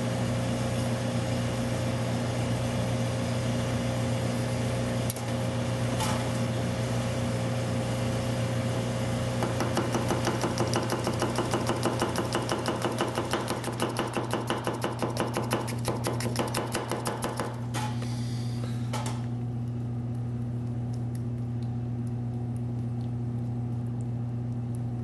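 Delbert Ealy Damascus gyuto slicing a tomato on a wooden cutting board. About ten seconds in, the blade makes a quick, even run of taps against the board for about eight seconds, then a couple of single clicks. A steady low hum sits underneath throughout.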